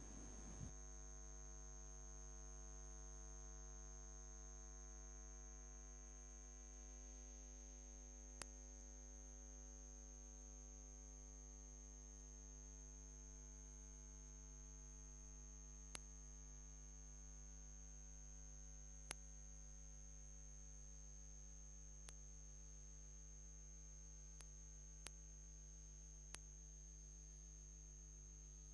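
Near silence holding a steady electrical mains hum with a thin high whine above it, and a handful of faint clicks scattered through.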